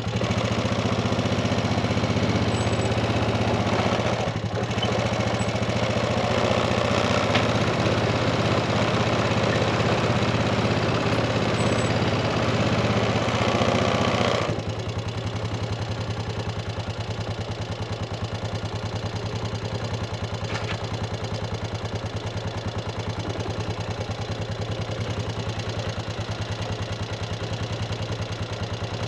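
Tractor engine running steadily. A louder, rougher layer of machine noise over it stops suddenly about halfway through, and the engine then runs on more quietly.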